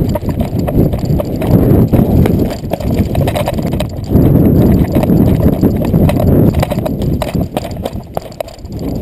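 Wind rumbling on a body-worn action camera's microphone as the wearer moves quickly on foot, with irregular thudding footfalls and knocks on the camera.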